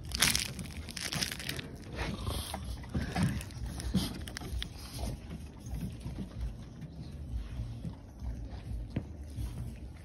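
Handling and walking noise from a phone being carried outdoors: a steady rustling rumble with several soft knocks.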